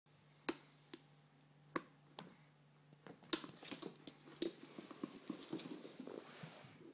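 Cats' paws tapping and scrabbling on the floor while chasing a laser dot: a few separate sharp taps, then from about halfway a quicker run of skittering and scuffling.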